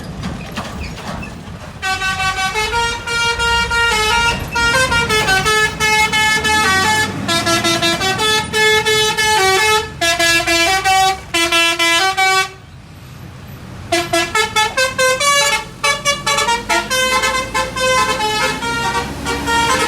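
Tour bus's telolet horn, a multi-note musical air horn, playing a tune of changing notes over low vehicle rumble. The notes begin about two seconds in, break off briefly about two-thirds of the way through, then come back as quicker, shorter notes.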